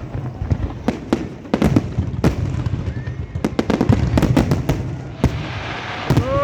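Fireworks going off in a dense string of sharp bangs and crackles over a low rumble of booms, with a hissing crackle building near the end.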